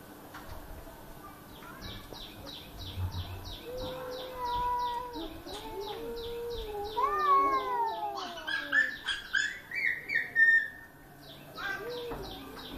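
Cats crying in long meows that glide up and down in pitch, against rapid high chirping at about four chirps a second.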